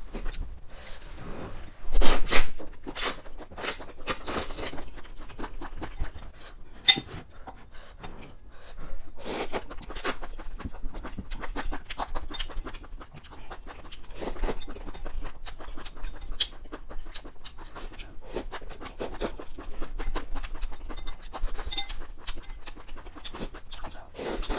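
A person eating close to the microphone: irregular chewing and mouth noises with occasional clinks and scrapes of utensils. The loudest burst comes about two seconds in.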